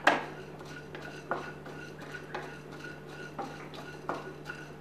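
Wooden spatula stirring whole coriander and cumin seeds as they dry-roast in a nonstick frying pan: light scraping and clicking of the seeds and spatula against the pan, opening with one sharp knock.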